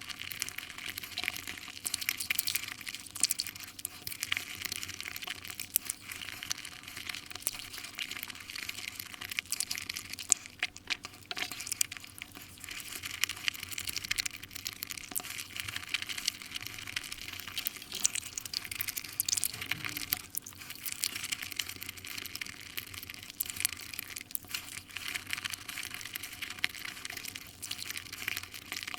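Close-miked chewing and wet mouth sounds of someone eating Nutella crepes: a dense, continuous run of small smacks and crackles.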